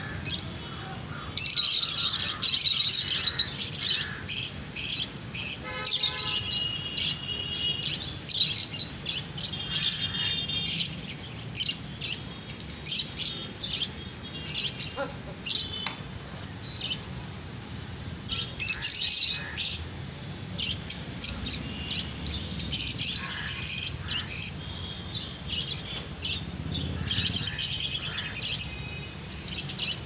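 A flock of caged lovebirds chirping and chattering, with several loud bursts of shrill, rapid chatter, the longest about a second in and near the end.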